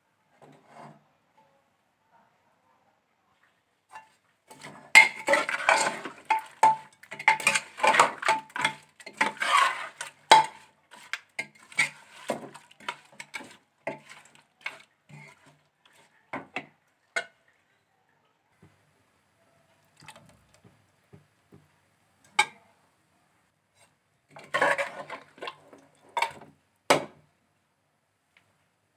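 Metal ladle scraping and clinking against the inside of an aluminium pressure cooker as meat, onions and spices are stirred together. There is a long run of scraping and knocks from a few seconds in, then scattered single knocks, then a short burst of scraping near the end.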